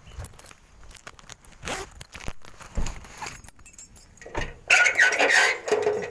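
Metal house gate being unlocked and opened: clinks and rattles, then a loud metallic clatter and scrape about three-quarters of the way in, ending in a brief squeal.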